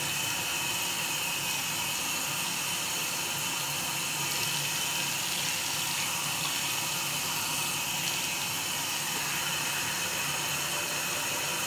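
Tap water running steadily into a sink while a bowl is washed.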